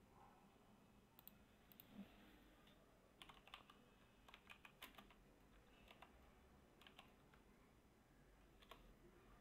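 Faint computer keyboard typing: short runs of quick key clicks separated by pauses.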